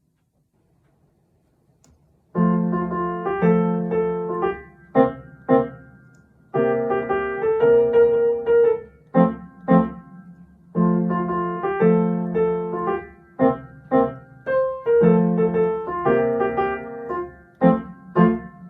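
Piano playing a march tune for children to step to: after about two seconds of silence, phrases of held chords followed by short, detached chords, repeating about every four seconds.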